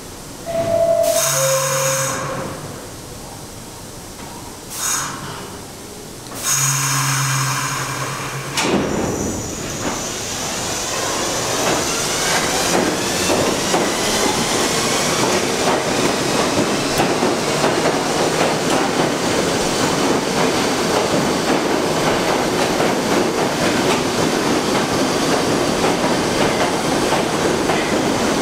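R62A subway train pulling out: two short, loud air hisses with a low tone come in the first eight seconds. Then the train starts moving and speeds up, its motors whining upward in pitch over a steady, growing clatter of wheels on rail.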